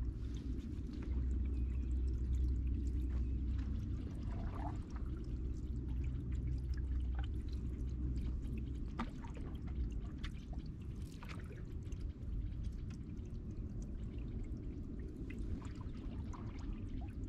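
Canoe paddle strokes in the water: the blade dipping and pulling, with drips and small splashes coming at irregular intervals over a steady low rumble.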